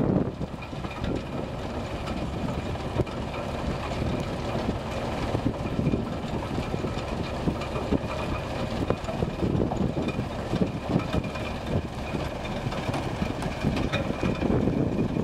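Portafill 5000CT mobile screener running while it screens manure: a steady machine drone with constant rattling and small knocks, and a faint high whine.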